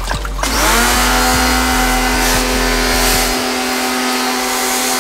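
Electric pressure washer switching on: its motor winds up in pitch within a fraction of a second, then runs at a steady high hum over the hiss of the water jet as it sprays the aircon unit.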